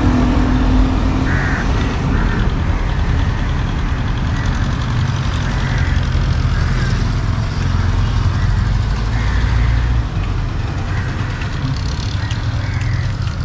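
Steady rumble of road traffic passing on the street, with no speech over it.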